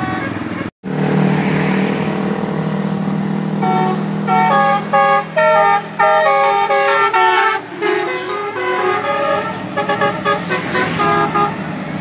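Bus telolet horn (Basuri-type musical multi-horn) playing a fast tune of short stepped notes, from about four seconds in until near the end, over a steady low engine drone.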